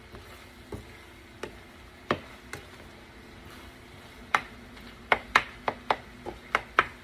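Spatula tapping and scraping against a stainless steel frying pan as shrimp are stirred in white wine. The taps are scattered at first, then come about two or three a second from about five seconds in, over a steady low hum.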